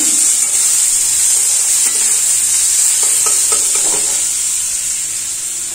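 Finely chopped onion sizzling in hot oil in a steel kadai while a metal spatula stirs it, with a few light scrapes of the spatula a little past halfway.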